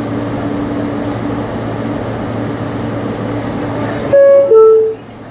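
Steady interior noise of an R160 subway car with a low hum, then, about four seconds in, the car's two-tone door chime: a higher note followed by a lower one, loud and brief.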